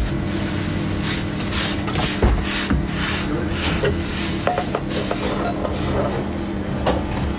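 A paper towel or cloth wiping a plastic cutting board in repeated brushing strokes, with a low thump about two seconds in and a few light knocks, over a steady low hum.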